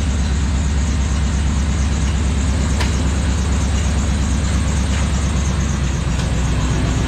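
Chevy one-ton van's engine idling steadily.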